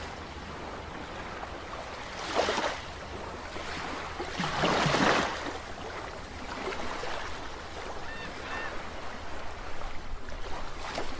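Underwater whoosh sound effect for an animated logo: a steady watery rush that swells twice, about two and five seconds in.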